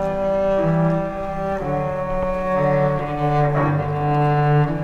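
Cello music: slow, sustained bowed notes, two or three held together, moving to a new chord about every second.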